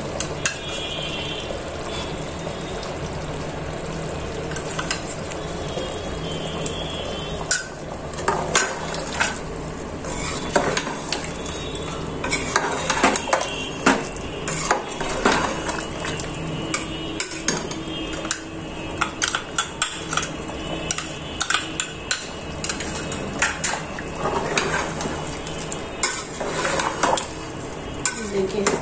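Metal ladle stirring chicken curry in a metal pot, over a steady low sizzle of the simmering gravy. From about eight seconds in, the ladle clinks and scrapes against the pot often.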